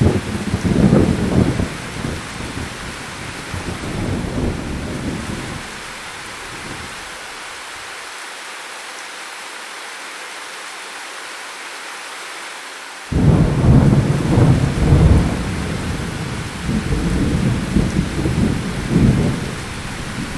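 Steady rain with two rolls of thunder: the first starts suddenly at the outset and dies away after about five seconds, leaving rain alone; the second breaks in suddenly about thirteen seconds in and rumbles on in several swells.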